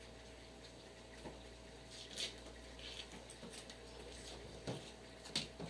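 Knife slicing calabresa sausage on a cutting board: a handful of faint, irregular taps of the blade against the board.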